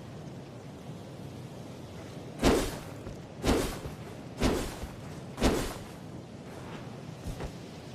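Katana sword sound effect: four short, loud strokes without any ringing tone, evenly spaced about a second apart, each fading quickly.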